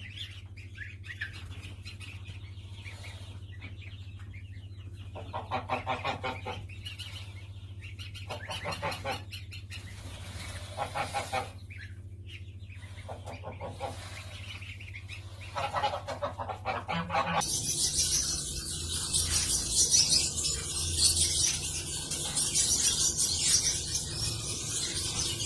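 Domestic goose honking in repeated separate calls over a steady low hum. About seventeen seconds in it cuts abruptly to dense, rapid high-pitched bird chirping.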